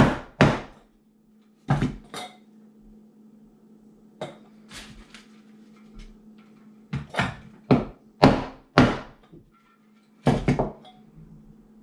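Claw hammer knocking on a wooden block that presses a tin can down, seating the parts of a homemade alcohol stove. One blow comes just after the start and a pair about 2 s in, then a run of uneven knocks and a last pair near the end.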